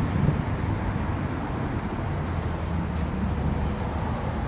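Steady low rumble of road traffic outdoors, with no clear single event.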